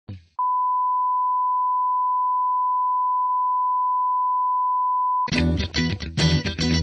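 Broadcast line-up test tone, one steady pure pitch held for about five seconds, the reference tone that goes with colour bars. About five seconds in it cuts off and band music with electric guitar starts suddenly.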